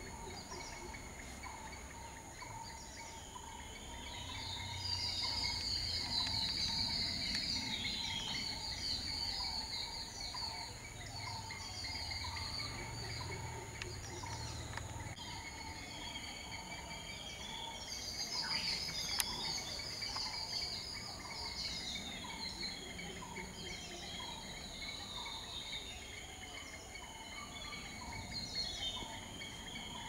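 Birds chirping and twittering in bursts over a steady, high-pitched insect drone. The bird calls are loudest about five seconds in and again near twenty seconds.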